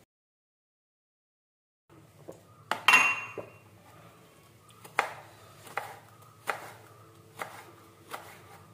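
About two seconds of dead silence, then a kitchen knife chopping a green gourd on a wooden cutting board in uneven strokes, roughly one a second. About three seconds in there is a louder clatter with a brief ring.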